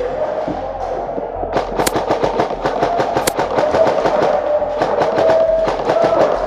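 Airsoft electric guns firing in rapid bursts, a dense rattle of sharp clicks over a steady whine.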